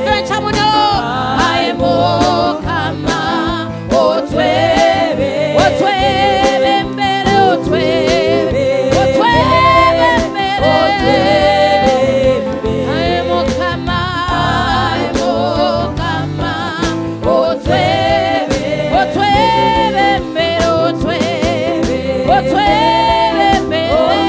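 Gospel praise-and-worship song: voices singing melodic lines with vibrato over a band with sustained bass notes and a steady drum beat.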